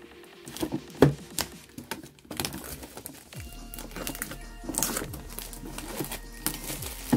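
Clear plastic shrink-wrap being picked at, torn and crinkled as it is peeled off a metal collector's tin, with a sharp click about a second in. Background music with held tones comes in after about two seconds.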